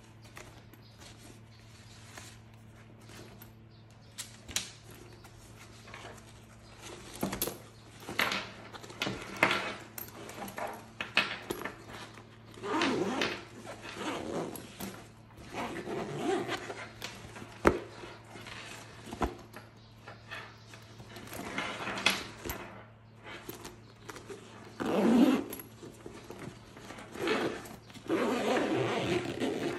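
Ballistic nylon tote bag being handled: its fabric rustles and scrapes in irregular bursts, with a few sharp clicks.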